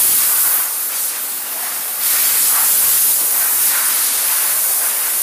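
Loud, steady hiss with no pitch to it, strongest in the high range. It eases a little about a second in and comes back up about two seconds in.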